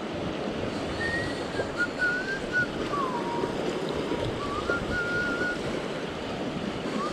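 Sea swell washing and surging around coastal rocks, with wind buffeting the microphone. A faint, wavering high whistle comes and goes over it.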